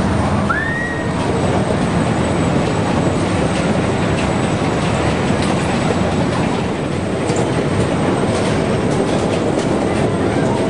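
Steady, loud rumbling background noise of a carnival midway, with a short rising squeak about half a second in and a few faint clicks later.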